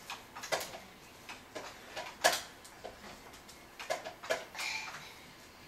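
Scattered light clicks and plastic knocks at irregular spacing, from a toddler handling the plastic arm and pressing the buttons on an infant swing's control panel.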